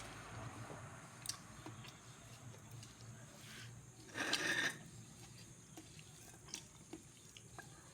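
Quiet eating sounds: someone chewing a meal of fried tempeh and rice, with scattered small clicks and one louder brief noise about four seconds in.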